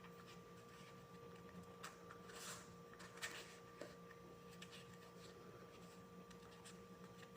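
Near silence: faint rustles and light taps of a sheet of EVA foam being rolled up by hand, over a steady low electrical hum.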